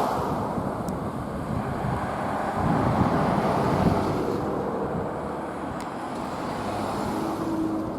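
Street traffic noise: a steady wash of vehicle and tyre sound, swelling as a vehicle passes about three to four seconds in.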